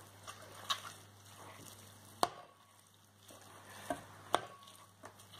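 A spoon stirring a thick, crumbly mass of crushed biscuits and milk powder in a stainless steel pot: soft scraping and squishing, with four sharp clinks of the spoon against the pot.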